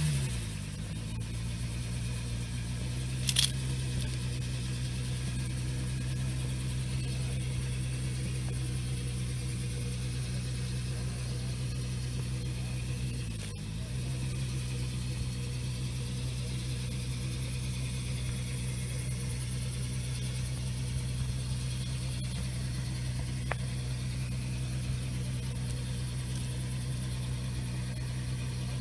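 Tractor engine idling steadily after dropping from a higher speed right at the start; about halfway through it briefly dips and picks back up. One sharp click a few seconds in.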